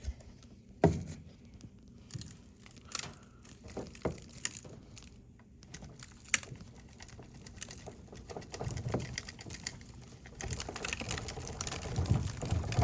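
Handling noise from a Roomba robot vacuum's plastic dust bin: scattered sharp clicks and knocks, the loudest about a second in, then denser rustling and low thuds in the second half.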